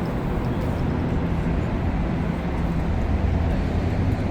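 Steady low rumble of vehicle engines and traffic, growing a little stronger about three seconds in.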